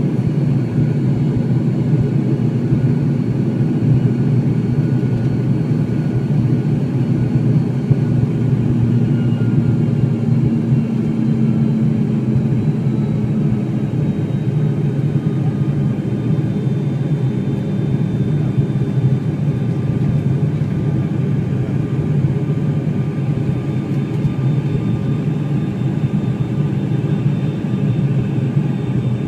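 Airliner cabin noise in flight: the steady low drone of the engines and airflow, with a faint higher hum that fades out about halfway through.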